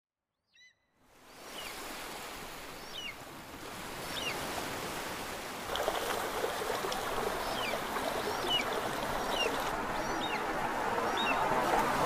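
Rushing water, growing louder, with a bird giving short chirping calls roughly once a second over it. The water noise starts about a second in and steps up about halfway through.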